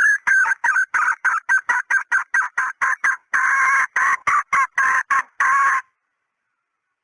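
Female red junglefowl clucking: a fast run of short clucks, about five a second, then a few longer cackling calls, cutting off abruptly about six seconds in. This is a hen's call played as a lure for junglefowl.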